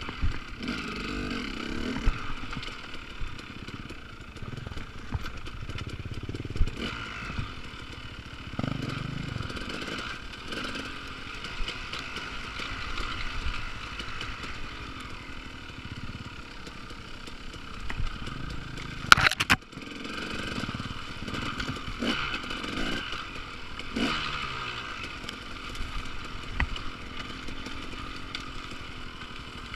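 Enduro motorcycle engine revving up and down with the throttle while riding a rough dirt trail, with knocks and rattles from the bike over bumps. There is one sharp, loud knock about two-thirds of the way through.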